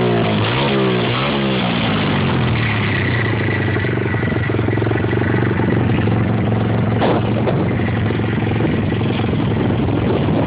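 Pit bike engine revved in a couple of quick blips, then running steadily.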